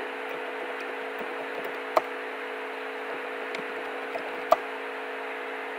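Steady hiss with a low electrical hum from an open microphone, broken by two sharp clicks about two seconds and four and a half seconds in, and a few fainter ticks.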